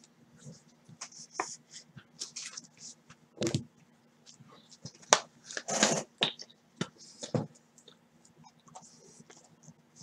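Trading cards being handled and slid into plastic sleeves and clear card holders: scattered light clicks, rustles and scrapes, the loudest a little over three seconds in and around five to six seconds in, over a faint steady hum.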